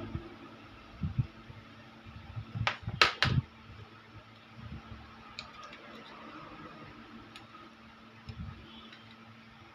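Sharp clicks and knocks from handling the wireless microphone: one knock about a second in, then three loud clicks close together about three seconds in, with a few light ticks later, over a steady faint hum.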